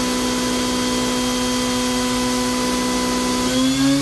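Spindle of a 2004 Kitamura Mycenter 2XiF CNC vertical mill running under power with a steady whine of several tones. Near the end the pitch starts to rise as the spindle changes speed.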